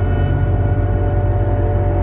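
Ambient background music of long, held tones over a steady low drone.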